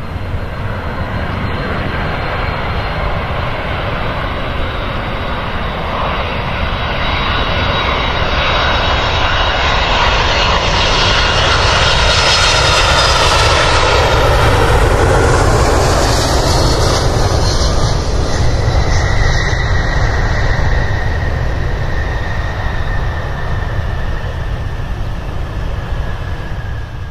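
Jet airliner's engines at takeoff power as it rolls down the runway and lifts off. The roar swells to a peak about halfway through and then fades, with a high whine sliding down in pitch as it moves away.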